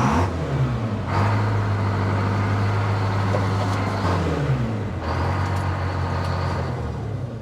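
Detroit Diesel two-stroke engine on an old excavator firing up and running. Its speed rises over the first second, then it runs steadily, dropping and picking back up once about four seconds in. It is being run to circulate freshly filled engine oil after an oil change.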